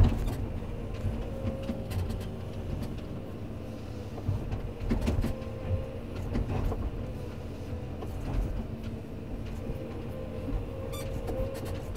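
Komatsu PC210 excavator's diesel engine running under load with a steady hydraulic whine, while the bucket digs in and pries a tree stump out of the ground. Scattered knocks and thuds come from the bucket working the stump and roots.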